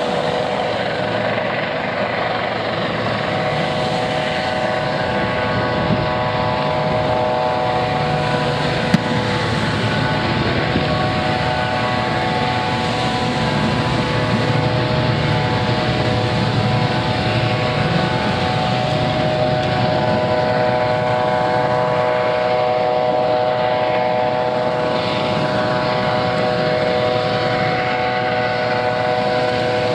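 Helicopter hovering: a steady engine whine with several held tones over rotor noise.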